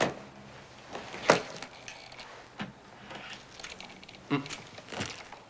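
A handful of separate sharp clicks and clinks of small hard objects being handled and set down. The loudest comes about a second and a half in.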